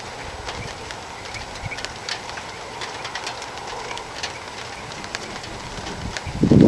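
Outdoor ambience during a thunderstorm: a steady hiss with scattered light ticks, and a brief, loud low thump near the end.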